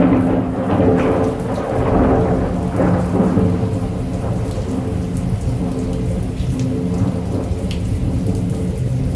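Heavy rain falling steadily, with the low rumble of thunder rolling underneath, strongest near the start.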